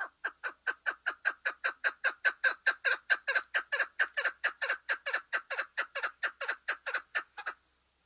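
Caged chukar partridge (the 'lal keklik' type) calling: a fast run of sharp repeated notes, about five a second, that swells in the middle and stops near the end.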